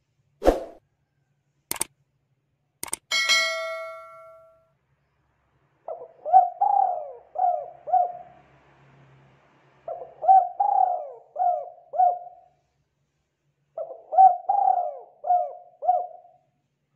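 Spotted dove cooing: three phrases of five or six quick coos each, a few seconds apart. Near the start, a knock, two clicks and a ringing ding that fades over about a second.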